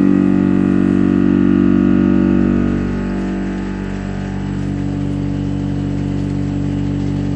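Walter BLAXX indexable milling cutter, five tangential carbide inserts at about 1,600 rpm, cutting 42CrMo4 steel in a CNC machining centre: a steady machining hum with a sustained tone, a little louder for the first three seconds.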